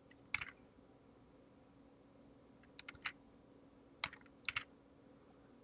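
Sparse keystrokes on a computer keyboard: about seven separate key presses in small clusters, one near the start, three around the middle and three about four seconds in, over a faint steady hum.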